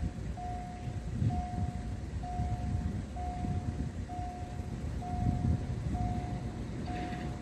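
Level-crossing warning signal beeping a single steady tone, about one half-second beep a second, eight times, over a low rumbling noise.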